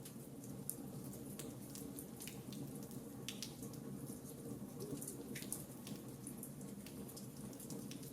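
Wood fire crackling: irregular sharp pops and snaps over a steady low rumble of burning.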